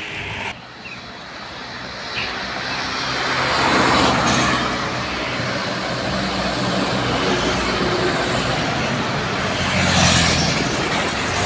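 Heavy trucks on a road: engines running steadily, with road noise swelling as vehicles pass about four seconds in and again near ten seconds. The sound drops abruptly about half a second in.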